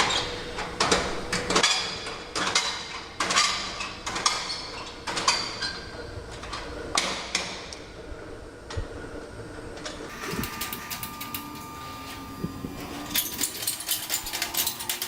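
Factory work on steel sectional garage door panels: a string of sharp metallic knocks and clanks that ring briefly, then, after a short lull, a fast run of rattling clicks over a steady whine for the last few seconds.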